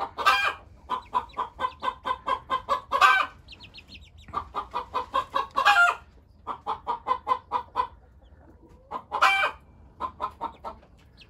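Young chickens clucking in quick runs of about five or six calls a second, with a louder squawk four times, about every three seconds.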